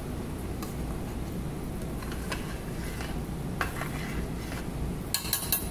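Metal spoon stirring a thick saluyot (jute leaf) stew in a metal pot, with light scrapes and clicks now and then and a quick run of louder, ringing clanks against the pot near the end. A steady low hum runs underneath.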